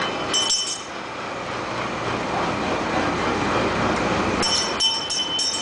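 Small brass bell on a kiddie-ride boat rung, a stroke or two about half a second in and then several strokes in quick succession near the end, over a steady mechanical rumble of the ride.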